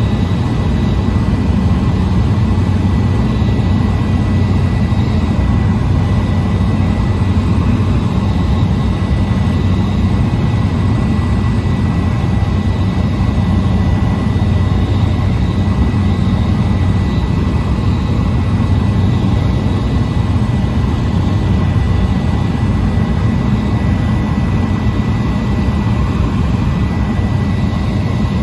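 Cessna 208 Caravan's single turboprop engine and propeller droning steadily, heard from inside the cabin, with a thin steady high whine above the deep hum.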